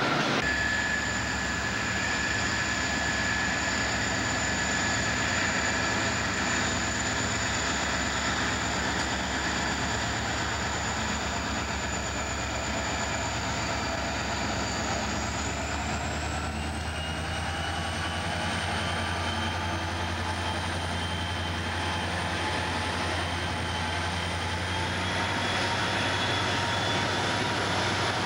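CSX diesel-electric locomotives running close by: a steady low engine throb with a thin high whine over it. The whine rises in pitch about halfway through and stays higher.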